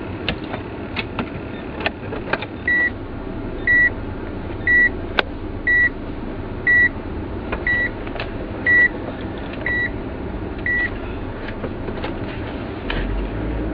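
Instrument cluster of an early DW3W Mazda Demio giving a short, high chirp about once a second, nine times in a row, over the car's running and road noise with scattered clicks and rattles. This is the abnormal meter noise that comes on above about 20 km/h and goes away after driving a while.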